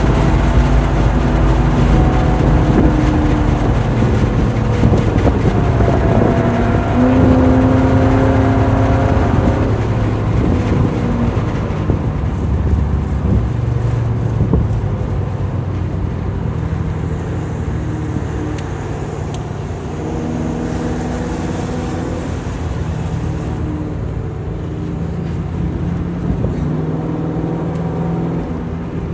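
Lincoln Mark VIII's 4.6-litre V8 heard from inside the car on track, pulling hard at mid revs for the first ten seconds or so, then easing off to lower revs and a lighter cruise, with steady road and wind noise underneath.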